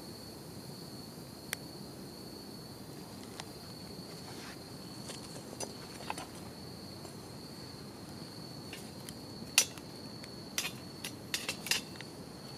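Wood fire crackling in a small wood-burning camp stove, with irregular sharp snaps and pops that come more often and louder in the last few seconds, the loudest about ten seconds in. Insects, crickets, chirr steadily at a high pitch throughout.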